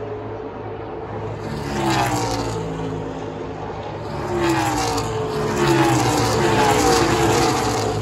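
NASCAR stock cars' V8 engines passing one after another, each engine note falling in pitch as it goes by, over a steady low rumble of the field.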